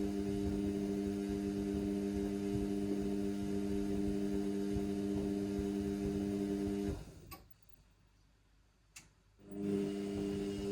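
Indesit washing machine running mid-cycle with a steady low hum. About seven seconds in the hum stops abruptly, a couple of clicks follow, and it starts up again about two and a half seconds later.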